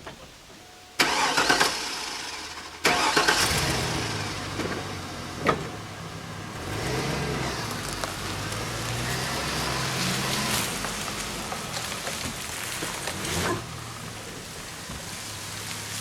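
A vehicle engine starting about three seconds in, after a sudden sound near the first second, then running with its pitch rising and falling a few times.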